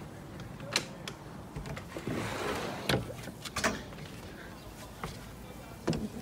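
A few scattered sharp knocks and clicks, with a brief rush of noise about two seconds in.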